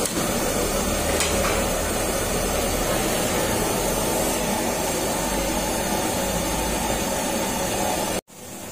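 Commercial gas wok burners running: a loud, steady rushing hiss of the gas flames under the woks, which cuts off abruptly near the end.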